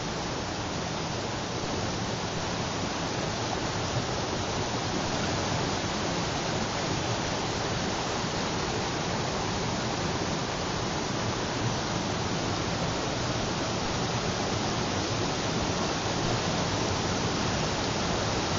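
Mountain stream rushing over boulders and small cascades, a steady even rush of water.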